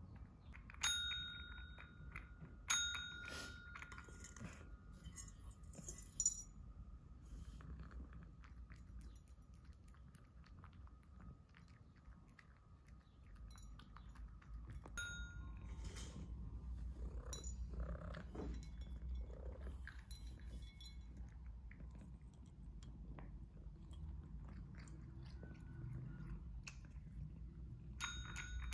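Cat eating from a ceramic bowl: soft crunching and many small clinks against the bowl, with a few sharp ringing clinks. Near the end a pet call bell dings as the cat presses it with its paw.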